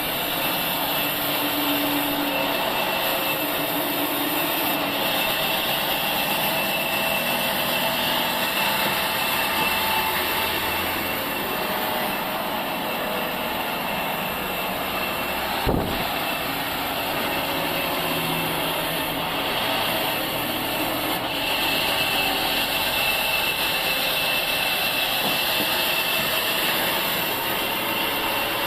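Sawmill saw and its machinery running steadily, a continuous mechanical noise with a faint high whine, and one sharp knock about halfway through.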